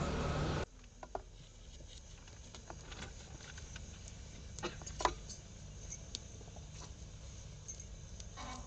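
A low hum that cuts off suddenly under a second in, then a quiet background with sparse, irregular small clicks and crackles, the sharpest about five seconds in.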